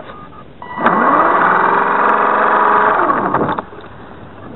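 Electric motor and gearbox of an RC Super Cub airplane spinning up with a rising whine, running steady for about two and a half seconds, then winding down and stopping. The gearbox is broken, which sets up vibration in the airframe.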